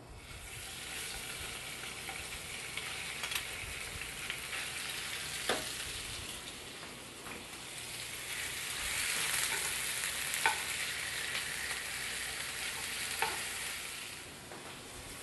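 Raw chicken breast strips sizzling as they are laid into a hot frying pan, the hiss growing louder around the middle. Metal tongs click sharply against the pan about five times.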